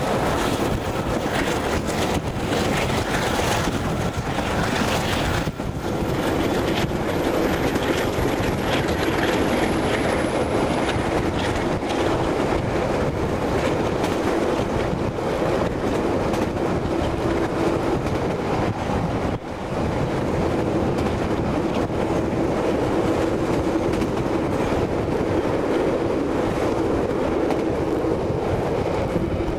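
Southerner passenger train running at speed, heard from an open carriage window: a steady rush of wheels on rail and wind, with a steady drone joining about six seconds in.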